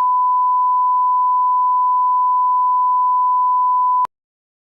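Steady 1 kHz reference tone of a bars-and-tone leader, a single pure beep. It cuts off abruptly about four seconds in.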